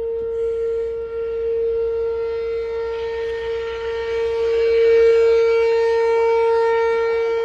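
Outdoor tornado warning siren (RM-127) sounding one steady tone, swelling louder about two-thirds of the way through.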